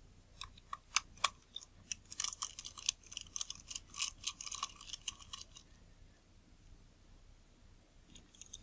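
Small clicks and scratchy ticks of tweezers and fingers working on the small metal and plastic parts of a disassembled Nikon Series E 50mm f/1.8 lens, taking out its brass focus key. The run of clicks lasts about five seconds, then stops, and another click comes near the end.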